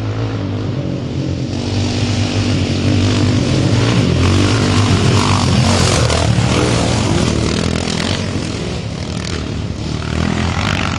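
Three Honda XR650R dirt bikes, each with a 649 cc single-cylinder four-stroke engine, running hard on a dirt road as they ride up and pass close by. The sound swells to its loudest about halfway through and fades as they pull away.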